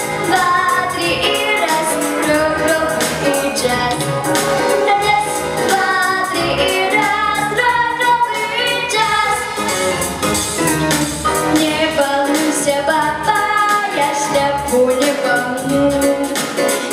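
An eight-year-old girl singing into a microphone over a recorded backing track, her voice amplified through stage speakers.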